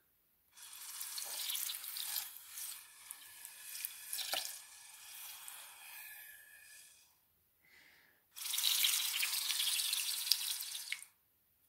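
Breath blown through a bombilla (mate straw) across the surface of water in a large container: two long hissing blows, the first with a few small splashy ticks from the disturbed water.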